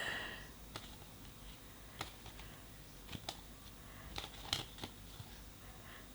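Faint, scattered clicks and soft rustles of tarot cards being handled, about a dozen light ticks spread irregularly over a quiet room.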